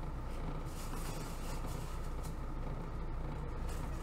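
Steady low hum of room background noise, with faint rustling of foam packing peanuts and a plastic bag being handled.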